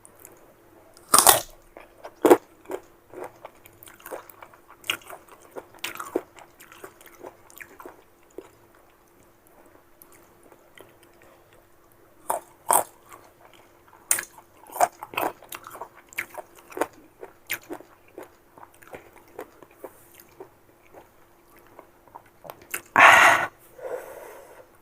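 Close-miked biting and chewing of crisp unripe green mango: sharp crunches at irregular intervals with quieter chewing between, and a longer, louder burst near the end. A faint steady hum sits underneath.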